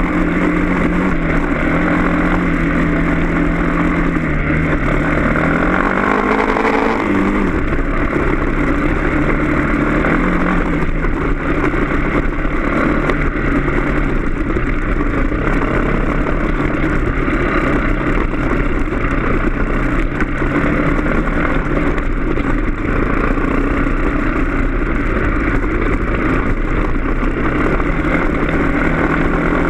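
Off-road motorcycle engine running steadily while riding a dirt trail. Its pitch rises about five seconds in, drops back about two seconds later, and lifts briefly once more around ten seconds in.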